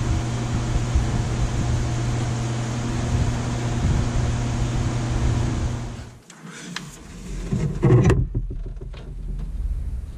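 A small electric motor hums steadily, then cuts off about six seconds in. Light clicks and knocks of hand work on metal follow, with a louder clunk around eight seconds in.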